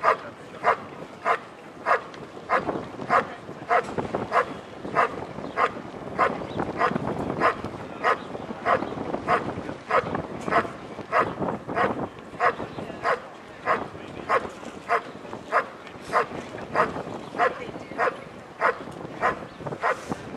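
German shepherd barking steadily and rhythmically, nearly two even barks a second, the sustained hold-and-bark at the helper in a Schutzhund (IPO) protection routine.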